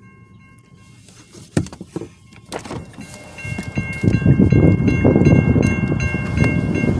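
Railroad crossing warning bell ringing in rapid repeated strokes, faint at first and loud and clear from about halfway, as the car's window is lowered, with wind rumbling on the microphone. The crossing is malfunctioning: the signal is active with the gate raised and no train present.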